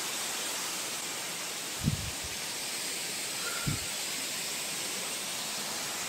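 Steady rushing hiss of the Palaruvi waterfall, water falling down a rock face into a pool. Two brief low thumps about two seconds in and again nearly two seconds later.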